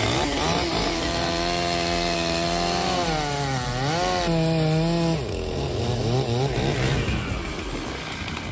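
Chainsaw engine running at high speed, its pitch steady at first, then dipping and wavering about three to five seconds in before settling again.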